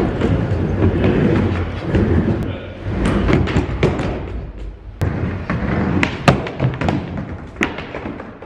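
Skateboard rolling on a hard floor, a steady low rumble broken by repeated clacks and thumps of the board, the loudest a little after the middle.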